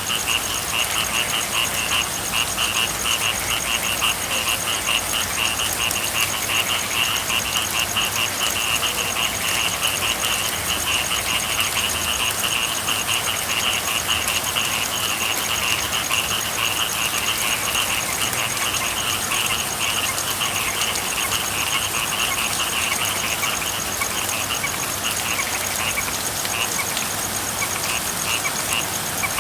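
A chorus of frogs calling in fast, pulsing trills over a steady hiss of rain; the chorus thins out near the end.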